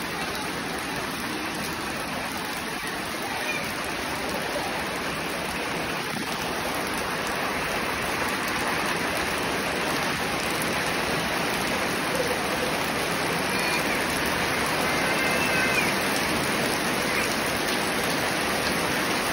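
Monsoon rain pouring onto puddles, mud and foliage: a steady hiss that grows a little louder toward the end.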